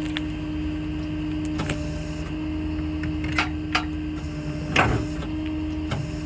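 Service truck's crane hydraulics running with a steady mechanical hum and whir, with a few light clicks and a louder clunk about five seconds in.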